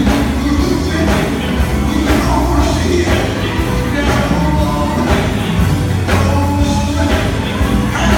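Live gospel band playing: electric guitars, bass guitar and drum kit with a steady beat, and a singer's voice over the PA.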